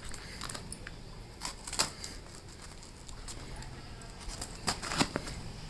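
A parcel's packaging being opened and handled by hand: scattered rustles and sharp clicks or snips, the loudest about two seconds in and twice near the end.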